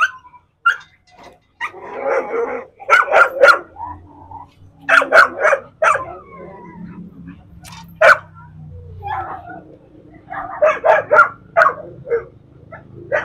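Pit bull-type dogs barking aggressively at each other in short bursts of two or three loud barks, with pauses between, and a rough snarl about two seconds in.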